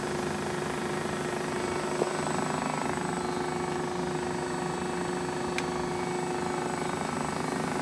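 Kent JHC-18S centerless grinder running steadily: a constant machine hum with one steady tone under an even noise. A single sharp click about two seconds in.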